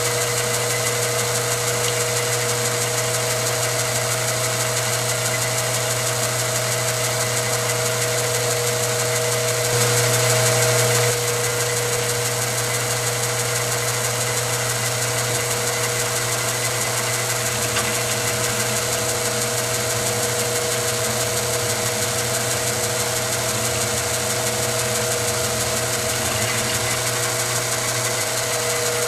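Milling machine running steadily as an end mill cuts a port into a metal shotgun muzzle brake tube, with a short louder stretch about ten seconds in.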